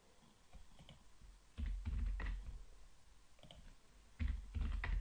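Computer keyboard typing: two short runs of keystrokes, one about one and a half seconds in and one near the end, each with a low thud under the clicks, and a few lighter clicks between them.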